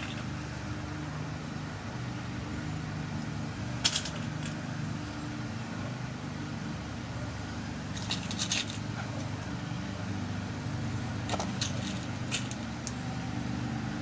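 Small clicks and ticks of new key pins being dropped and set into a pin-tumbler lock cylinder while it is rekeyed: one click about four seconds in, a quick cluster around the middle, and several more near the end. A steady low hum lies under it all.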